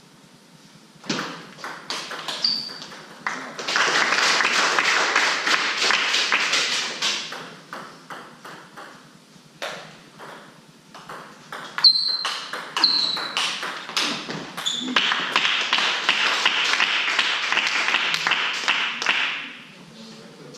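Table tennis ball clicking and pinging off bats and table in short exchanges. Two longer spells of dense, crackling noise are the loudest part, one a few seconds in and one in the second half.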